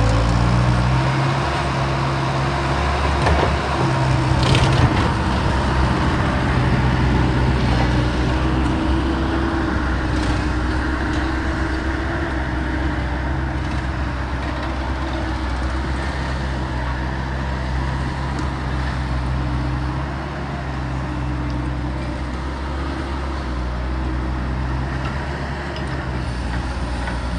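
Bobcat skid-steer loader running steadily while digging a hole, its engine holding an even hum, with a few sharp cracks and crunches of the bucket in the ground, the loudest about four to five seconds in.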